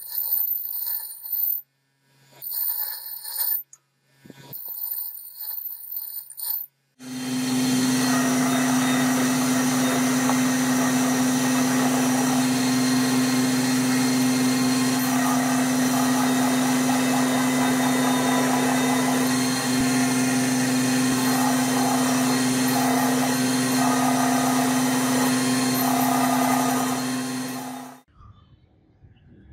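Bench grinder grinding the steel hatchet head in short bursts. Then, from about seven seconds in, an old drum sander runs steadily with a strong hum while the hatchet is sanded against its spinning drum, cutting off abruptly near the end.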